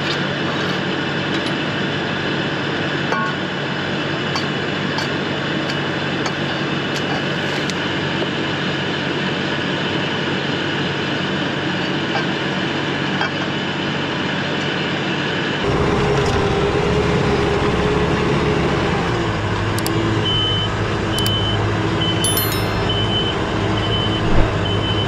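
LS MT573 tractor's diesel engine running steadily beside its three-shank ripper. About two-thirds of the way in the sound changes to the engine heard from the seat as it pulls the ripper through the field. Near the end a short high beep repeats about once a second, and there is a single sharp knock just before the end.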